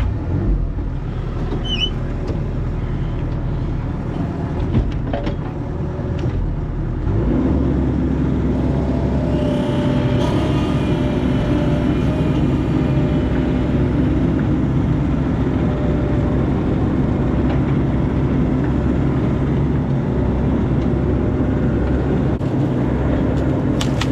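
Bobcat mini excavator's diesel engine running, just after starting; about seven seconds in it is throttled up and runs louder and steadier as the machine goes to work.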